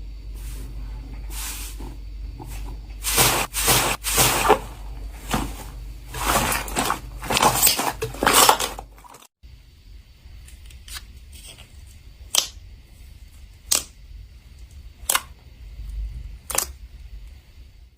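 Slime being squished and stretched by hand, a run of irregular wet, sticky crackling noises. After a sudden cut about nine seconds in, it gives single sharp pops or clicks about every second and a half.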